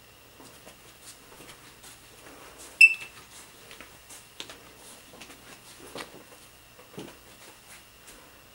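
A single short, high-pitched electronic beep about three seconds in, among faint knocks and footfalls as the camera is carried through the rooms.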